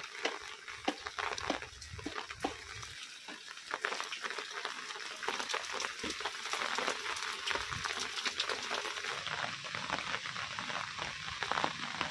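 Steady rain, with many drops ticking on an umbrella close overhead. Low footfalls through the wet, muddy ground in the first few seconds.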